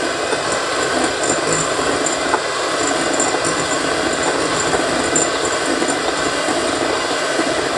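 Electric hand mixer running steadily, its beaters creaming margarine and sugar in a glass bowl.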